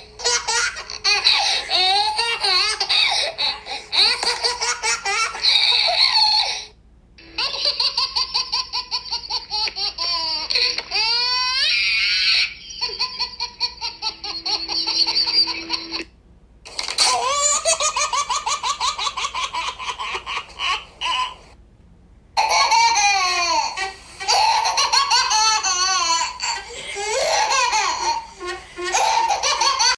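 A baby laughing hard: quick, high-pitched runs of giggles and belly laughs in several bouts, broken by short pauses.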